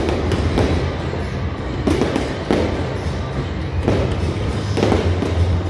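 Aerial fireworks bursting above a stadium: a string of sharp bangs, about one a second, over music with a steady low bass.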